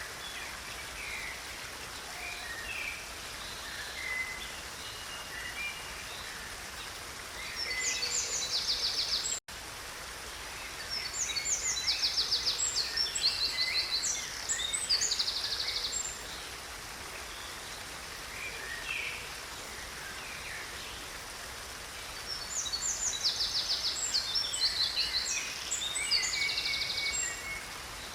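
Water of a small stream running steadily, with songbirds singing over it: scattered chirps and three bouts of rapid, high trilled song, the loudest in the middle. A momentary dropout cuts the sound about a third of the way in.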